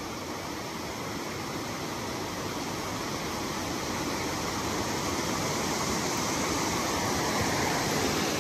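Shallow stream rushing over rocks and a small riffle: a steady wash of running water that grows gradually louder.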